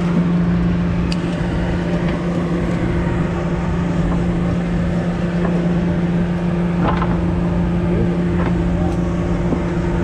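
Steady hum of the party boat's engine at a constant pitch, over a rushing noise of water and wind, with a few faint clicks.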